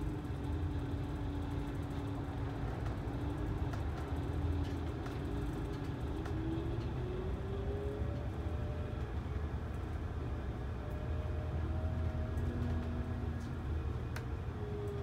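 Coach engine and road noise heard from inside the cabin: a steady low rumble with a faint whine that rises in pitch partway through and falls again near the end.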